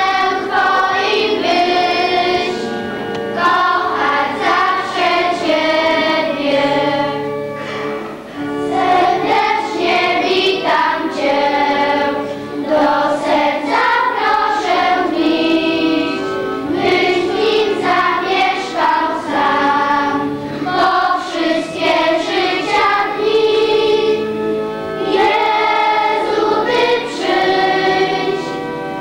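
A group of children singing a church hymn together in held, phrased notes with short breaks between lines.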